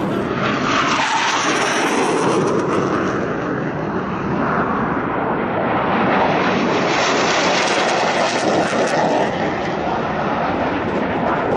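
Panavia Tornado jet on a low pass, its twin turbofans making a loud rushing jet noise that swells to its loudest a little past the middle as the aircraft goes by.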